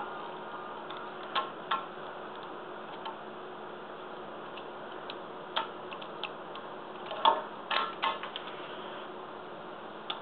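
Hard plastic parts of a Transformers Chromia deluxe-class action figure clicking and tapping as they are handled and pushed into place, over a steady hiss. A few scattered clicks come early, and a cluster about seven to eight seconds in holds the loudest one.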